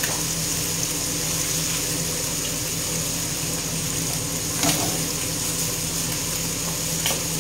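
Battered zucchini flowers deep-frying in hot oil: a steady sizzle, with two light knocks, one about halfway and one near the end.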